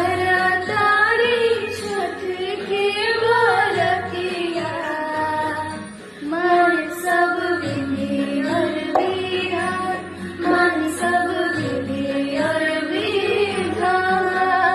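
A woman singing a Chhath geet, the devotional folk song of the Chhath festival, in long ornamented phrases over a steady musical accompaniment.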